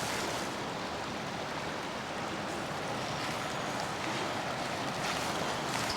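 Steady wash of rain and flowing river water, with no distinct events.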